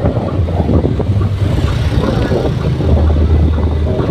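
Motorbike running while being ridden along a street, with wind buffeting the microphone and a low rumble that swells and eases.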